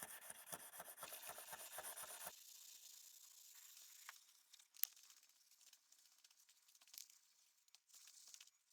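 1000-grit wet sandpaper rubbed back and forth by hand on a steel knife blade, in quick even strokes about four a second, stopping abruptly after about two seconds. After that only a faint hiss with a few light clicks.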